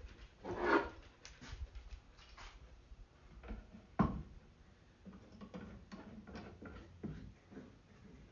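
Plywood box panels and a steel bar clamp handled during a dry fit: a short scrape about a second in, a sharp knock as the clamp meets the wood about four seconds in, then light clicks and taps.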